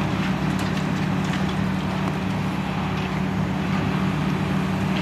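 Demolition excavator running steadily, its diesel engine a constant low hum under a dense noise of crunching and crackling rubble as the jaw attachment tears at a brick wall.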